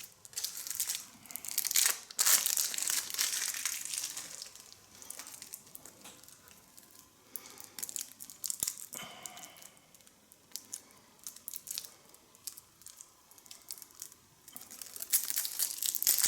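The wrapping on a deck of game cards being torn open and pulled off, in irregular crinkling, tearing bursts. They are busiest in the first few seconds and again near the end, with a quieter stretch between.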